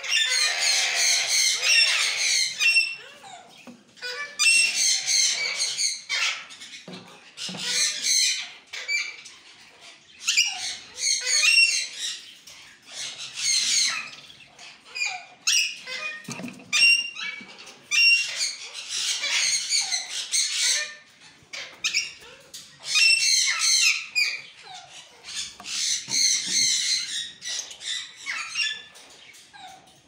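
Parakeets screeching, harsh high-pitched squawks in repeated bouts of a second or two with short gaps between.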